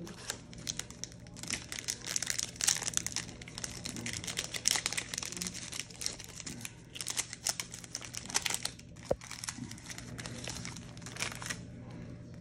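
Plastic trading-card pack wrapper being handled and torn open: crinkling and crackling in irregular spurts.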